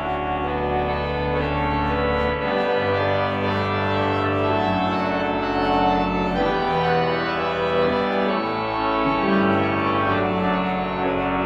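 Organ postlude: full, sustained chords over a low pedal bass, with the harmony moving from chord to chord and the bass shifting about two and a half seconds in.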